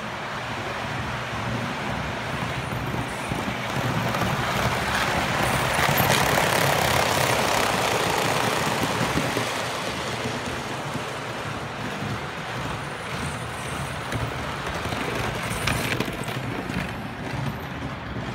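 HO scale model train running on the layout's track: a steady rolling rattle of wheels and motor. It grows louder to a peak about seven seconds in and then fades a little, with a few sharp clicks as the wheels cross rail joints or points.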